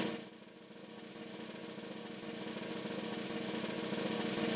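Snare drum roll rising steadily in loudness, a suspense build-up, with a few held notes underneath.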